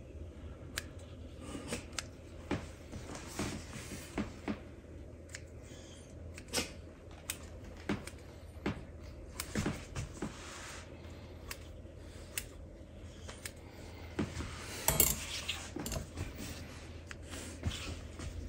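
Kitchen scissors snipping off excess puff pastry dough: a run of irregular, short clicks and snips, with a louder click about fifteen seconds in.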